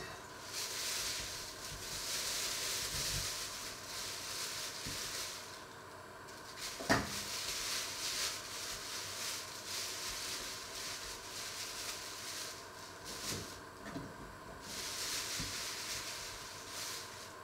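Thin plastic bag rustling and crinkling as it is handled, in stretches, with a single sharp knock about seven seconds in.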